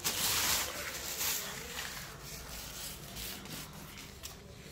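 Clear plastic wrapping around a badminton racket crinkling and rustling as it is handled. It is loudest in the first second or so, then thins to scattered crackles.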